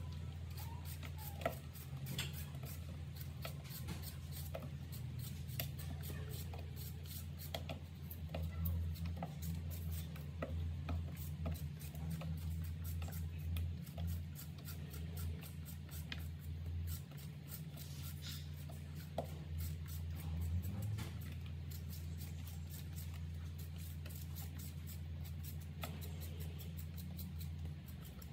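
Vegetable peeler scraping the skin off a raw sweet potato in many short repeated strokes, over a steady low hum.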